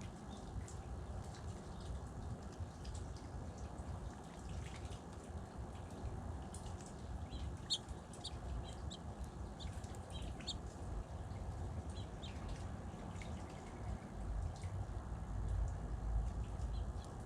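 Small birds giving short, high chirps, clustered mostly through the middle, over a steady low rumble that swells near the end.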